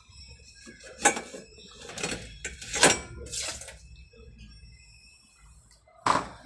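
Dishes knocking and clinking as they are handled in a dishwasher rack: about five separate sharp knocks, each with a short ring.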